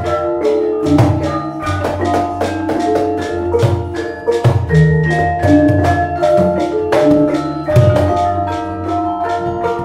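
Javanese gamelan ensemble playing: bronze bonang and kenong pot gongs and metal-keyed sarons struck with mallets in a steady, dense rhythm of ringing notes, with low gong and drum tones underneath.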